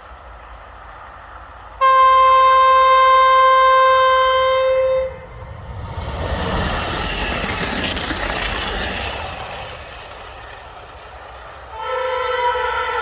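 Kockums Tyfon train horn on an electric multiple unit giving one loud, steady single-note blast of about three seconds, then the train passing with a rush of wheels on rails that swells and fades. Near the end another Tyfon horn starts sounding several notes at once, a chord.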